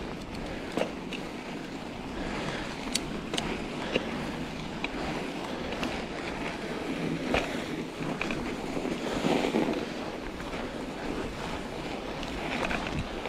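Mountain bike on Schwalbe Ice Spike studded tires rolling over packed snow: a steady rush of tyre and wind noise, with scattered sharp clicks and knocks from the bike going over bumps.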